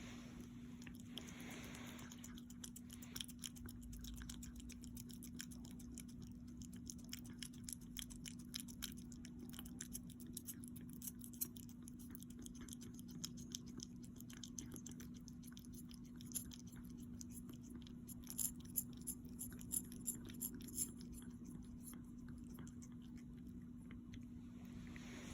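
An animal chewing, heard as a faint, irregular string of small clicks and crunches, with a cluster of louder crunches near the end, over a steady low hum.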